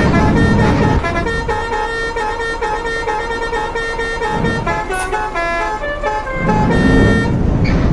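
A telolet basuri bus horn playing a quick tune of stepped horn notes, several pitches sounding together and changing every fraction of a second. A low rumble sits under it, heaviest in the first second and again near the end.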